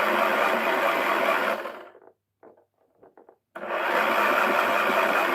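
Small electric motor of a toy washing machine whirring and rattling in two runs of about two and a half seconds, with a short pause between them.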